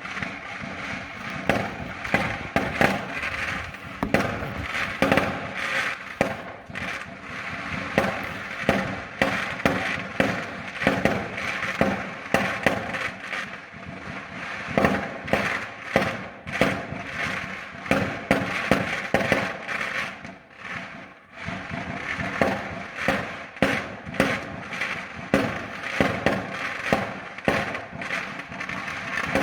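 Fireworks going off: an irregular, unbroken string of sharp bangs and pops, the loudest coming about once or twice a second, with a brief lull about twenty seconds in.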